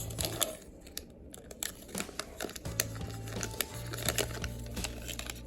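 Plastic wrapper of a trading-card hanger pack crinkling and cards being handled, a run of small clicks and rustles. Low background music comes in about halfway through.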